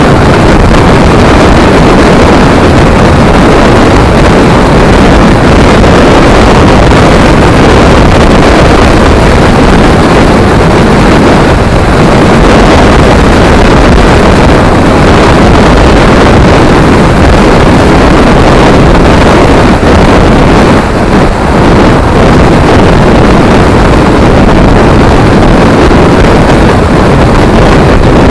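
Motorcycle riding at road speed: a steady, loud rush of wind on a helmet-mounted camera's microphone, with the engine running underneath.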